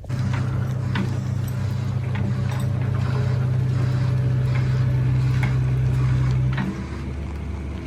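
A vehicle engine running steadily at a constant speed, with scattered knocks and rattles over it. It drops in level and changes note near the end.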